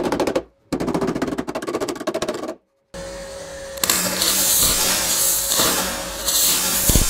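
Rapid, even hammer taps on a welded-in steel patch plate, in two runs broken by sudden cuts. About three seconds in a short steady hum starts, and from about four seconds in a MIG welder's arc crackles and hisses along the patch edge.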